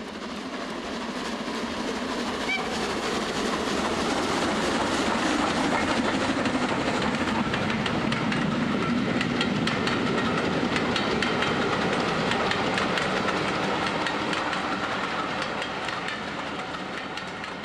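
A train running, a steady rush with rapid clickety-clack of wheels over rail joints, swelling up and then fading away.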